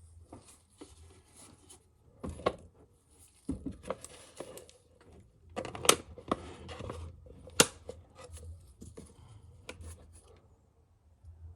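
Irregular clicks, taps and rustling of objects being handled at close range, with two sharp clicks near the middle. It thins out toward the end.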